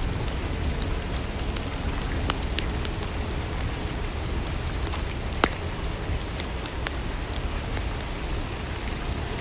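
Steady rainfall hiss, with scattered sharp crackles and ticks through it, the loudest about five and a half seconds in.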